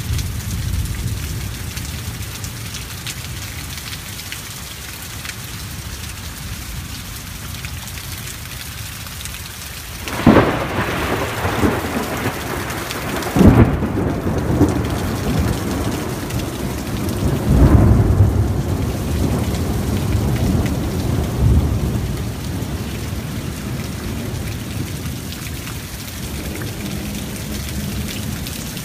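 Thunderstorm: heavy rain falling steadily on a street, with thunder. A sudden crack about ten seconds in and another sharp clap a few seconds later, then a long low rumble and a further peak before it settles back to the rain.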